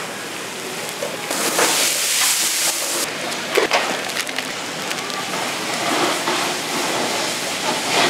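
Hiss and crackle of cooking over a wood fire, with a louder hissing stretch a little after the start and a few sharp clicks near the middle.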